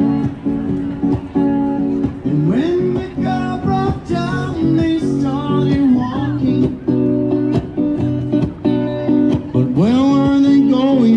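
Acoustic guitar strummed, with a voice singing a song in a bluesy style; the voice slides up in pitch into held notes twice.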